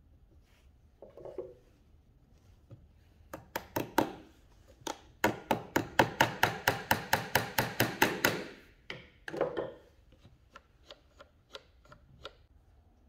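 Small hammer tapping a wooden slingshot trigger lever. There are a few taps first, then a fast, even run of about five taps a second for some three seconds, then a few more taps and lighter clicks near the end.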